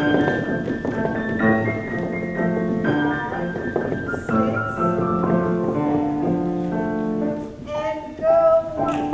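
Piano playing ballet class accompaniment: a flowing classical-style melody over held chords, in a steady meter.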